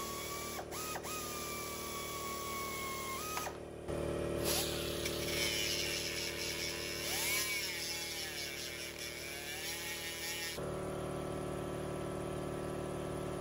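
Small high-speed power tools cutting down a bolt clamped in a bench vise. First a steady high-pitched motor whine dips twice as it loads up. After a short break, a cut-off wheel grinds through the bolt, its pitch sagging and recovering as it bites.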